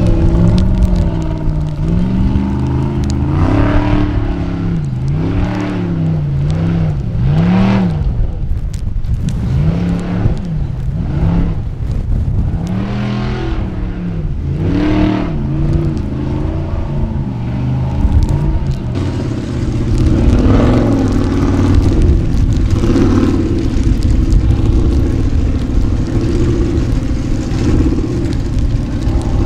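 Unlimited-class Formula Offroad buggy's engine revving hard, its pitch rising and falling again and again as the throttle is pumped while the tyres spin for grip on a steep, wet gravel climb.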